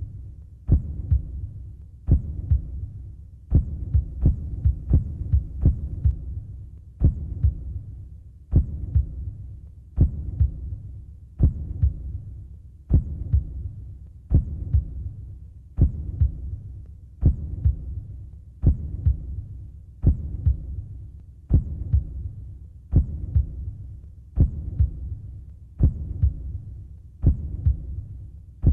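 Slow heartbeat sound effect: a low thudding beat about every one and a half seconds, each with a sharp attack, over a low continuous rumble.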